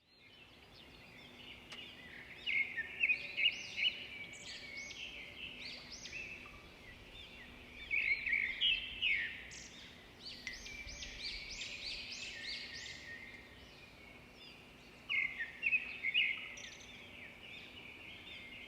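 Songbirds chirping and twittering in rapid, high trills that come in bursts, with a faint steady hum beneath.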